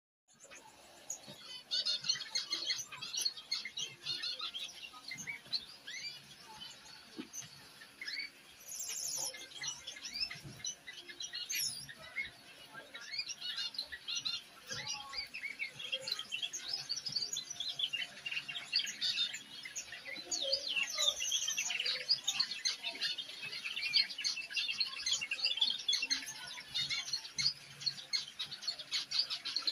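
A young male canary practising its song: a rambling, unfinished warble of quick chirps, slurred notes and short trills, with gaps, that goes on almost without a break. This is the subsong of a bird still learning to sing.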